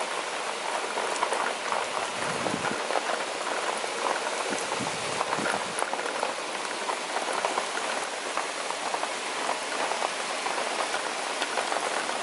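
Heavy thunderstorm downpour, rain falling steadily on trees, roofs and ground as a dense even hiss made of countless separate drop hits.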